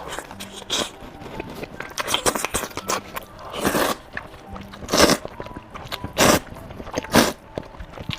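Close-miked eating: a person biting and chewing food, with many small mouth clicks and four louder bites spread through the second half.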